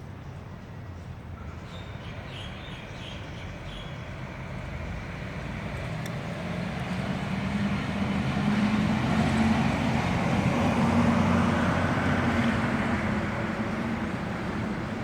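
A road vehicle going past: its engine and tyre noise grows louder over several seconds, peaks about two-thirds of the way through, then begins to fade.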